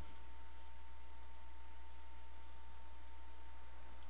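Faint computer mouse clicks, three quick pairs about a second or more apart, over a steady low electrical hum and a thin steady whine.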